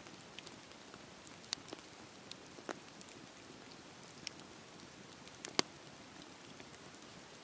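Wood campfire burning with a steady low hiss, broken by scattered sharp crackles and pops, the sharpest pop about five and a half seconds in.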